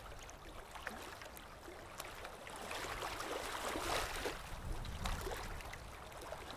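Logo-intro sound effect of rushing, bubbling water with small crackles, swelling to a peak about four seconds in and then fading away.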